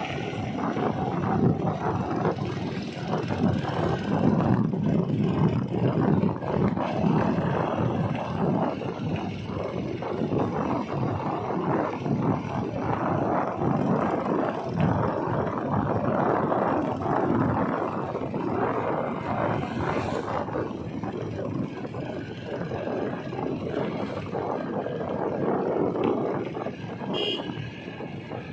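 Rough, steady road noise while riding: a motorcycle engine running with wind buffeting the microphone.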